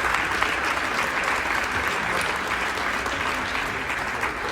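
Audience clapping steadily for a student just introduced.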